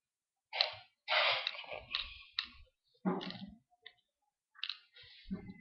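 Clicks and rustling from a plastic medicine bottle and its cap being taken apart by hand on a glass tabletop, in several short bursts.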